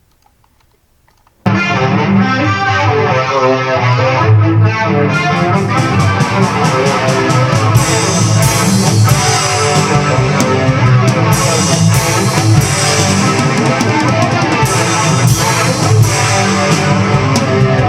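Loud playback of a home-recorded multitrack song: electric guitar over played drums, with the drum track boosted in bass and treble. It starts suddenly about a second and a half in and cuts off abruptly at the end.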